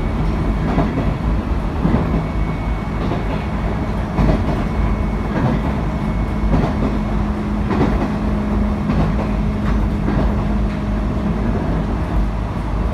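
JR 719 series electric multiple unit running at speed: a steady low rumble with a hum near 200 Hz, and wheels clicking over rail joints about once a second.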